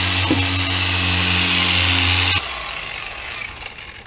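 Dual-action polisher with a 3.5-inch backing plate and foam pad running steadily while buffing gel coat; it switches off about two and a half seconds in and the sound dies away.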